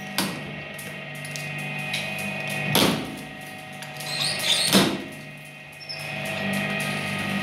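Twin-shaft shredder running with a steady motor hum while its cutters crush glass marbles: three sharp, ringing cracks, the last two the loudest, among smaller clicks of glass.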